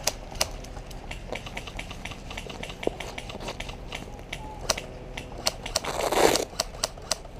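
Scattered sharp clicks and pops of airsoft guns firing at irregular intervals, with a short rush of noise about six seconds in.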